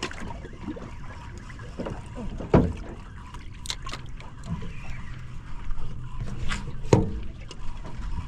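Small fishing boat on the water: a steady low rush of water and wind around the hull, broken by two sharp knocks, one a couple of seconds in and a louder one near the end.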